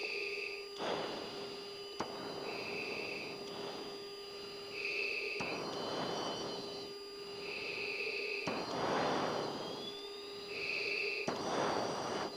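F-16 cockpit intercom audio: a short high beep repeating about every two and a half seconds over a steady hum. Between the beeps, the crew's breaths swell and fade as a hiss in the oxygen-mask microphones.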